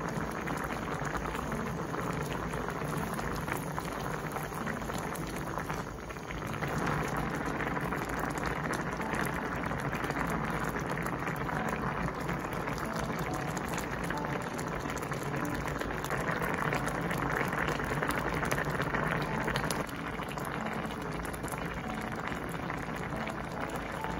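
Budae jjigae broth at a rolling boil in a wide shallow pot: a dense, steady bubbling made of many small pops.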